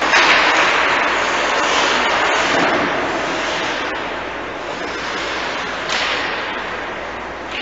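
Ice hockey rink ambience during play: a steady rushing hiss of skates on ice and rink noise, swelling briefly about six seconds in, with a few faint clicks.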